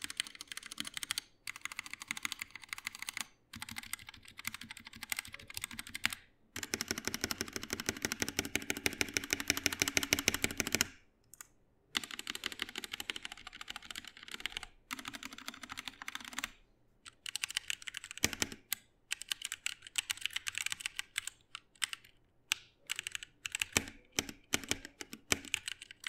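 Blitzwolf BW-KB1 mechanical keyboard with red switches, its stabilized modifier keys pressed over and over in bursts of fast clacks with short pauses between. The stabilizers sound clean, with no spring noise.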